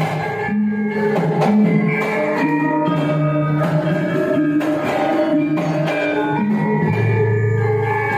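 Javanese gamelan ensemble playing, with ringing bronze metallophones and gongs over the strokes of a kendang drum.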